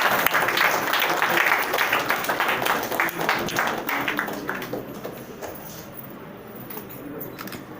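Audience applauding in a hall, the clapping thinning out and dying away about four to five seconds in, leaving a low murmur of the room.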